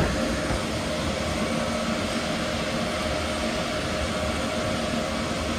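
Cooling fans running steadily: a constant whooshing drone with faint steady hums underneath.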